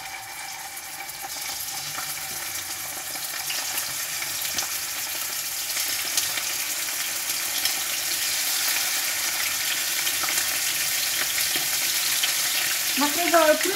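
Chicken leg pieces frying skin-down in hot sunflower oil in a frying pan: a steady sizzle that grows gradually louder as more pieces go in, with the oil spitting in small sharp pops.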